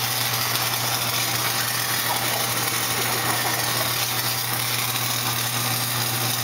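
Flux-core wire-feed welder laying a bead: the arc's steady crackling sizzle over a low steady hum.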